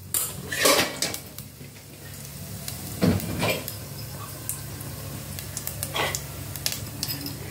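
Mustard seeds, urad dal, fenugreek and cumin sizzling in hot sunflower oil in a steel pot as the tempering heats up. The steady hiss grows about two seconds in, with a few sharp clicks along the way.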